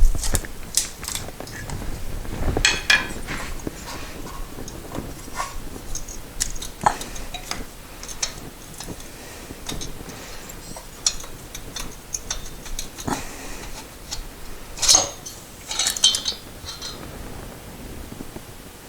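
Irregular metallic clinks and knocks of hand tools and engine parts as a cylinder is worked off a 1973 Moto Guzzi engine, the sharpest at the very start and about fifteen seconds in.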